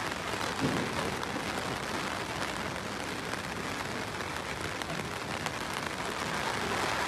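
Heavy rain falling steadily, an even hiss with many scattered patters of drops.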